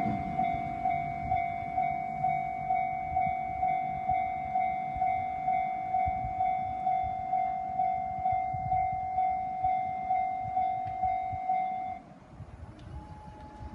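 Japanese railroad crossing's electronic warning bell ringing in an even beat, about two strikes a second, over a low background rumble, then stopping about twelve seconds in.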